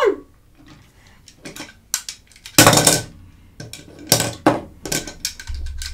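Hard plastic toy pieces clicking and knocking together as they are handled, with one louder clatter about two and a half seconds in.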